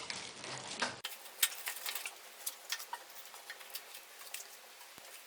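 Wood fire crackling in the firebox of a homemade stove-fireplace: irregular sharp snaps and pops over a faint hiss.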